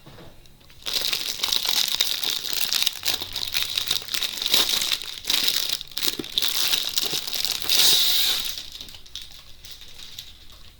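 Plastic packaging crinkling and rustling as it is handled, dense from about a second in and fading near the end.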